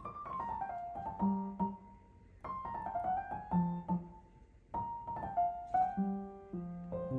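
Background piano music: a gentle melody of single notes in short falling phrases over low bass notes.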